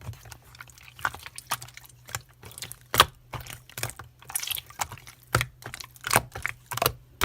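Irregular sharp clicks and taps, several a second at uneven spacing, over a low steady hum.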